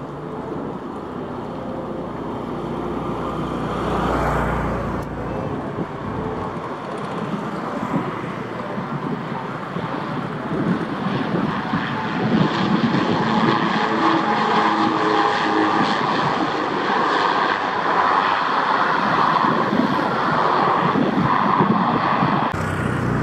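Twin-engine turboprop military transport on the runway, its engines and propellers running with a steady drone that grows louder about ten seconds in and stays loud.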